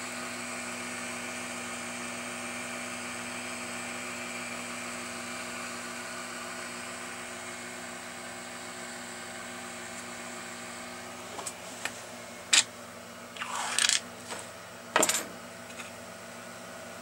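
Self-built RepRap Mendel 3D printer running, a steady motor whine and hum. In the last third come a handful of sharp clicks and knocks.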